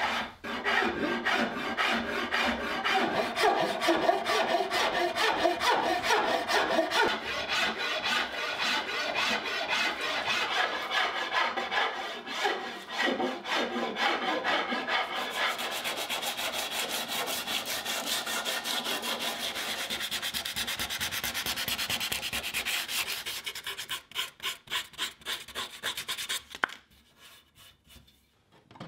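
A hand file rasping back and forth along a wooden pickaxe handle in quick, steady strokes. About halfway through, the scraping turns brighter and finer. Near the end it breaks into a few separate strokes and then stops.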